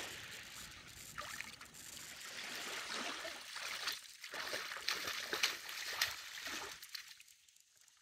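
Shallow lake water splashing and trickling among rocks at the shoreline, with a few short clicks; it drops abruptly to near silence about seven seconds in.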